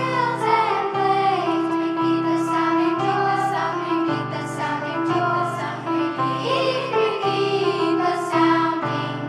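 A children's choir singing with instrumental accompaniment, the bass changing notes about once a second.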